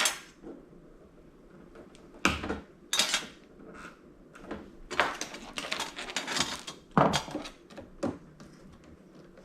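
Cables inside a TV being snipped with wire cutters, a series of irregular sharp snips and clicks, with clattering and rustling of circuit boards and parts being handled between them.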